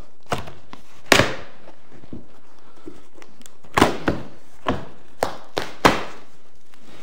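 Flaps of a large cardboard shipping box being pulled open: a string of sharp cardboard thunks and rustles, the loudest about a second in.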